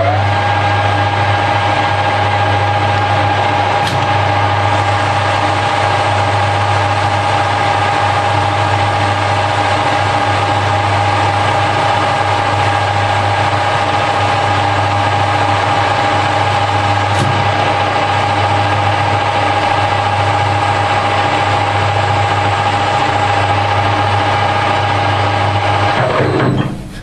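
Harrison L5 metal lathe running at a steady speed with a steady high whine over a low hum, then winding down with a falling whine near the end. This is the lathe taking a diameter down to 13.95 mm.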